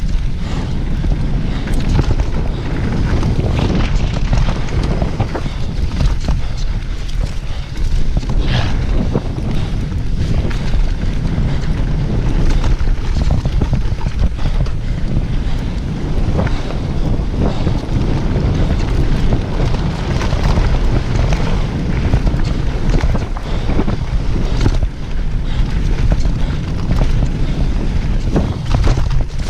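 A downhill mountain bike ridden fast over rough trail: wind rumbling steadily over the camera microphone, with a continuous clatter of small knocks and rattles from the bike and tyres on the ground.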